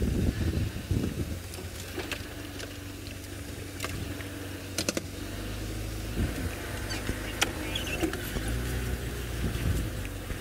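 Safari game-drive vehicle driving slowly off-road: a low, steady engine hum with scattered knocks and clicks.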